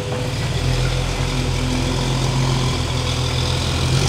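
Jeep Wrangler TJ engine running steadily at low revs.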